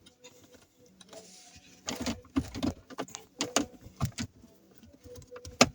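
Phillips screwdriver turning a long screw out of a car's dashboard panel: irregular clicks and short scrapes of the driver and the screw threads, with one sharper click near the end.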